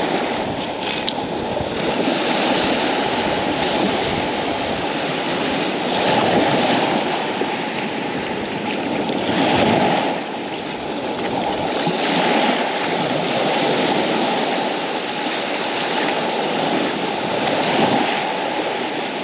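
Small waves breaking and washing up a pebble shore, the wash swelling and ebbing every few seconds.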